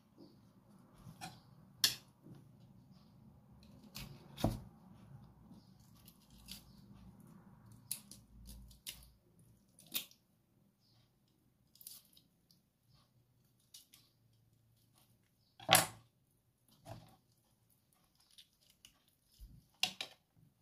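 Raw chicken wings being cut apart with a kitchen knife on a wooden cutting board: scattered sharp knocks of the blade and wings against the board, a few much louder than the rest, between quieter sounds of wet meat being handled.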